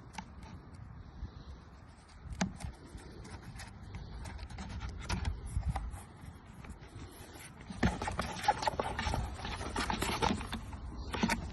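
Rustling and scraping with scattered sharp knocks, growing louder and busier about eight seconds in.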